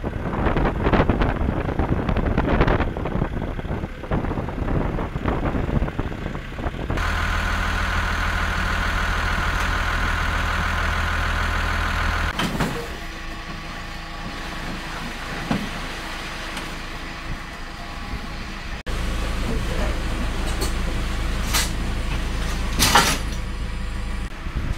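Diesel tractor engine running steadily with wind buffeting the microphone, then a steady machine hum with a held whine. Near the end come a few sharp knocks as plastic crates are shoved into place.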